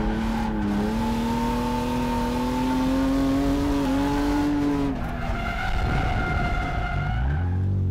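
BMW E36 drift car's engine held high in the revs through a long slide, its pitch slowly rising over tyre noise. About five seconds in the engine note gives way to a higher-pitched tyre squeal, and near the end the revs drop low and climb again.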